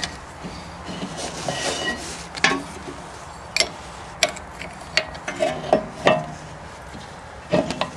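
Steel open-end wrench clinking against the brake hose fitting of a rear brake caliper as it is worked loose: a handful of sharp metallic clicks at irregular intervals.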